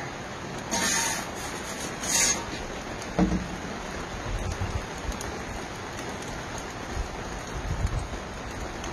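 Steady hiss of rain falling, with two short louder rushes of noise about one and two seconds in and a few low rumbles later on.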